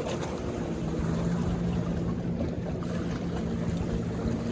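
A motorboat engine running steadily, with wind on the microphone.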